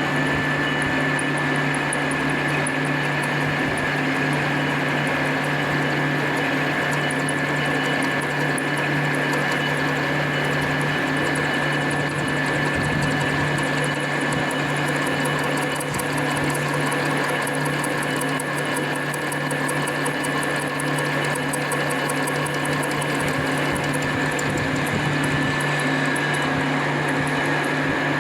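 Metal lathe running steadily while cutting an 8 mm key, with a constant whine over a low hum. A fast, even ticking comes in through the middle stretch.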